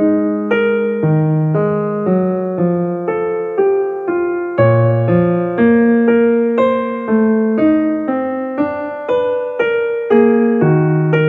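Background piano music: a gentle melody of single notes and chords struck about twice a second.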